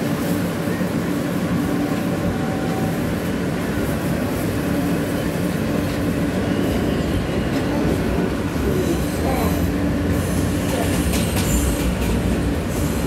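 Inside a New York City Subway J train car pulling away from an elevated station and gathering speed: the steady rumble of the car over the rails with a steady motor hum, and a faint high wheel squeal toward the end.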